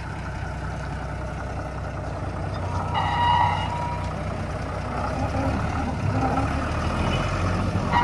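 Small diesel locomotive's engine running steadily as it pulls away with its train. A brief high-pitched tone sounds about three seconds in, and again near the end.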